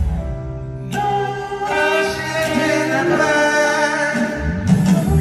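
Live concert music heard from the audience: a male singer holds long notes in a slow solo song over backing music, with a heavy bass coming in near the end.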